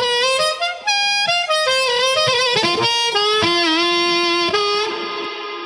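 Short harmonica riff with bent notes, ending on a long held note that begins to fade out near the end.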